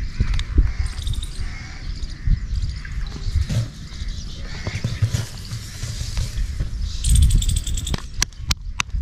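Soft, dull thumps of hands patting and slapping roti dough, with birds chirping faintly in the background. A quick run of sharp clicks comes in near the end.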